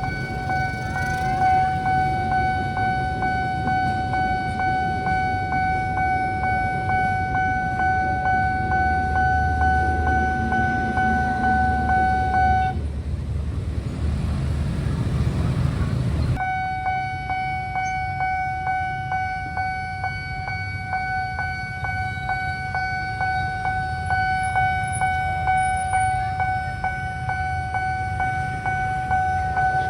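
Railway level-crossing warning alarm sounding one steady, high electronic tone over the low rumble of traffic. The tone cuts out suddenly for about four seconds midway, where a rushing noise takes its place, then resumes.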